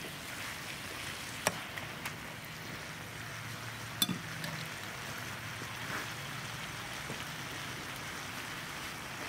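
Stir-fry of meat and water spinach sizzling steadily in a wok. A few sharp clicks of a metal spatula against the pan come through, the loudest about four seconds in with a brief ring.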